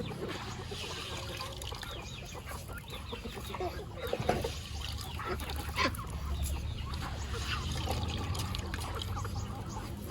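A flock of chickens clucking and calling as they feed, with scattered short calls over a steady low rumble.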